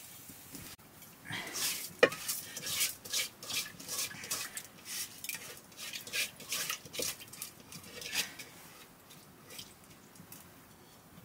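A hand mixing food in a metal bowl: repeated short scraping and rustling strokes, roughly two a second, with one sharp clink of the bowl about two seconds in. The strokes taper off near the end.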